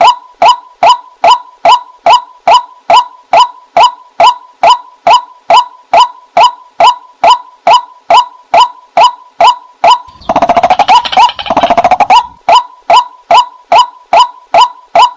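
White-breasted waterhen calls from a lure recording: a short 'kwak' note repeated steadily about twice a second. About ten seconds in, a two-second burst of faster, denser calling interrupts it.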